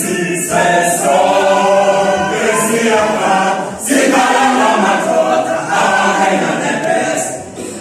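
All-male a cappella choir singing in the Zulu mbube style: full held chords in two phrases, with a short break about four seconds in and a fade near the end.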